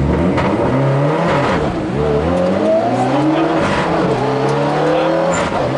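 Mitsubishi Lancer rally car accelerating hard from a standing start, heard from inside the cabin: the engine revs climb and drop sharply at three upshifts, roughly every one and a half to two seconds.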